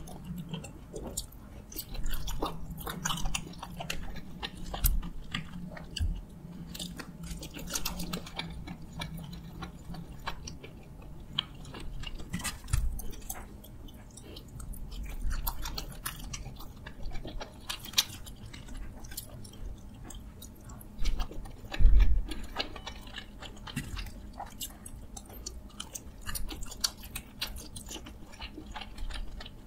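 Chewing of soft, moist steamed dumplings, with wet mouth sounds and irregular small clicks. A low hum stops about twelve seconds in, and a single low thump comes about two-thirds of the way through.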